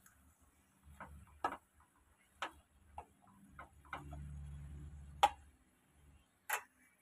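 Wooden spatula knocking and scraping against a frying pan while stirring diced pumpkin and ridge gourd: a string of irregular sharp clicks, the loudest about five seconds in, with a low rumble of handling just before it.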